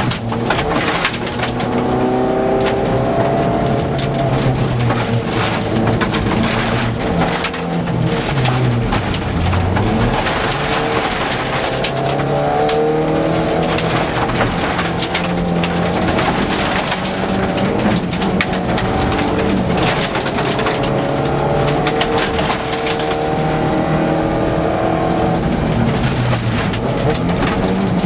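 Untuned rally car engine at hard throttle, heard from inside the cabin: the revs climb and drop over and over with gear changes and lifts. Gravel clatters against the underbody.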